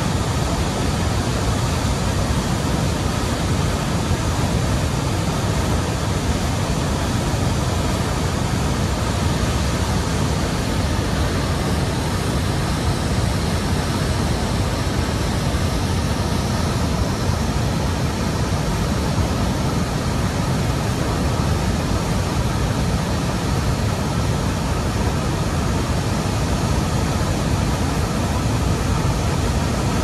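Large waterfall plunging into a rocky canyon, heard from close above at its brink: a loud, steady rush of falling water that never changes.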